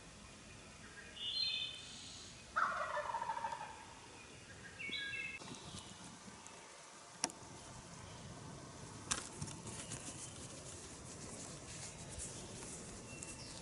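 A wild turkey gobbler gobbling once, a falling, rattling call about two and a half seconds in, with small bird chirps before and after it. Two sharp clicks follow later.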